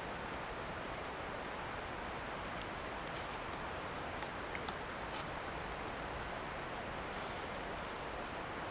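Steady rushing of moving river water, with a few faint clicks.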